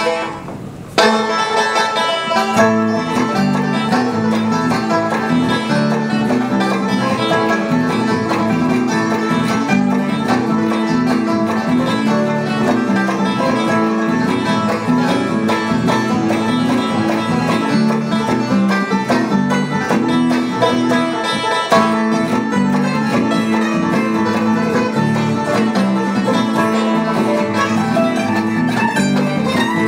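Bluegrass band playing an instrumental, with the banjo leading over strummed acoustic guitars and mandolin chop, starting about a second in.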